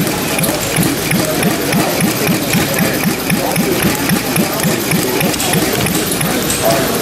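Small scale-model stationary gas engine running steadily, with an even beat of about four strokes a second, over steady background noise.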